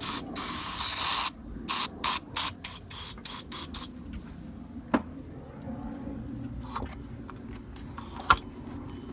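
Aerosol can of PB Blaster penetrating oil spraying into the rusted cylinder of a seized engine, to loosen corrosion that stops the piston: one long spray, then about seven short squirts. A sharp click comes later, near the end.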